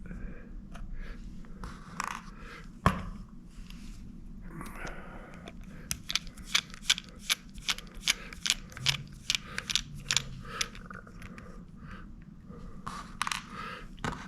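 Small screws being backed out of a hard drive and handled: a run of light clicks and ticks, coming quickest in the middle, with a sharper click about three seconds in.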